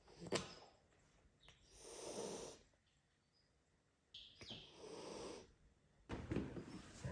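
Cat hissing in three breathy bursts of about a second each, warning off a new kitten; a sharp click comes just before the first.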